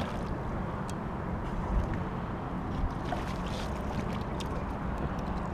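Steady low rumbling noise of wind and water around a small open fishing boat, with a few faint knocks.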